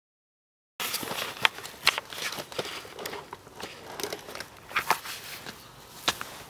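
Silence for under a second, then close rustling of fabric and bags with irregular sharp clicks and knocks: handling noise from a camera being moved about among gear and a sleeping bag inside a bivvy.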